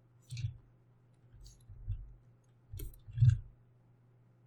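About five sharp clicks from a computer mouse and keyboard, spaced unevenly, the loudest a little past three seconds in, over a faint low hum.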